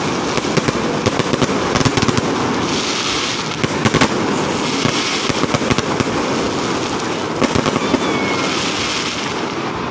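Fireworks going off overhead in quick succession: a dense crackle with many sharp bangs, the loudest around two, four and seven and a half seconds in.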